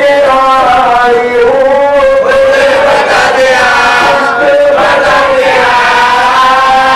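A male marsiya reciter chanting an Urdu elegy for the Karbala mourning in a slow, melodic voice, holding long notes that glide up and down.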